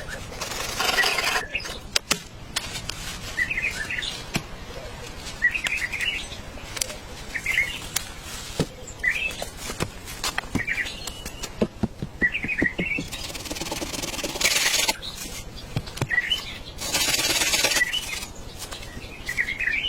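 A bird chirping over and over, a short call every second or two. Scattered sharp taps and clicks run through it, and there are three bursts of hiss lasting a second or two each.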